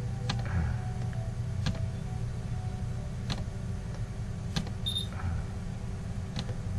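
Computer mouse clicking: five short, sharp clicks spaced about a second and a half apart, over a steady low hum.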